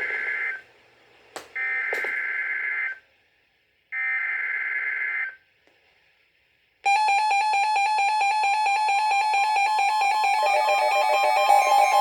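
Emergency Alert System SAME header on NOAA Weather Radio: three short bursts of screechy two-tone digital data, each about a second long with brief gaps between. About 7 seconds in, a loud, rapidly pulsing alert tone starts, signalling a severe thunderstorm warning.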